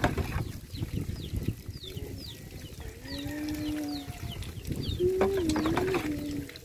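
Two drawn-out, wavering animal calls, one about three seconds in and a higher one about five seconds in, over a run of short chirps from small birds and the splash of water being scooped and poured.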